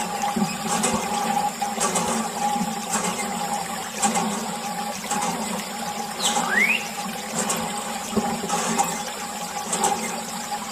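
Thin stream of water running from a small plastic tube and splashing onto toy tractors and wet sand, with a steady hum underneath. A brief rising whistle sounds about six seconds in.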